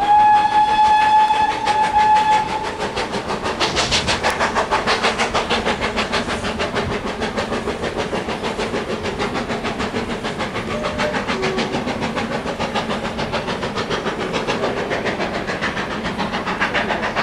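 A steam locomotive, GWR Castle-class Clun Castle, gives one long whistle lasting about two and a half seconds. It then passes hauling its coaches, with a fast, even beat of exhaust and wheels.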